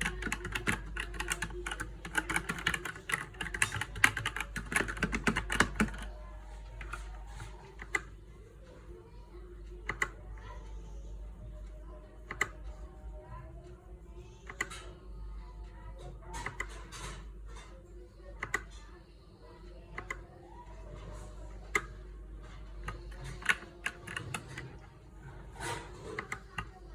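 Typing on an Ajazz NK68 68-key mechanical keyboard: a fast, dense run of keystrokes for about the first six seconds, then single key presses spaced out, roughly one every second or two.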